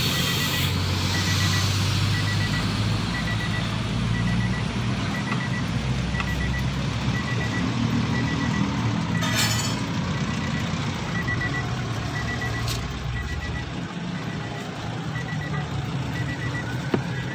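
An electronic warning beeper pipping steadily about once a second over the low steady hum of a running engine, with one brief sharp noise about nine seconds in.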